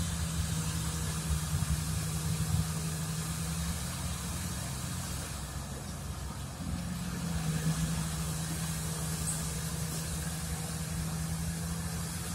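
Heavy diesel engines of a Volvo hydraulic excavator and haul truck running with a steady hum. The engine note eases off about four seconds in and picks up again around seven seconds.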